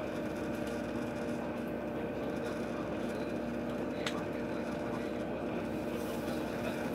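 Steady mechanical hum of a train, several even tones over a low rumble, with a single sharp click about four seconds in.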